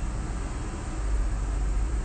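Steady low rumble with an even hiss, background noise picked up by a phone's microphone.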